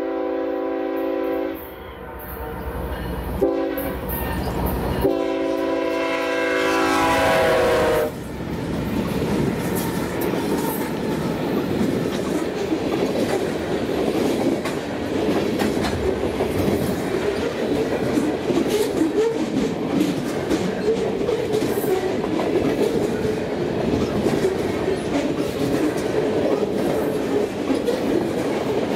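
Diesel freight locomotive's multi-chime air horn sounding the end of a grade-crossing signal: a long blast, a short one, then a final long blast whose pitch drops as the locomotive passes. Then the freight cars roll by with a steady rolling noise and clickety-clack of the wheels over the rail joints.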